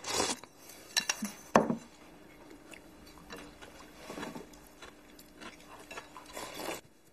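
People eating from porcelain bowls with chopsticks: slurping and chewing in irregular bursts, with a few sharp clicks of chopsticks against the bowls about a second in.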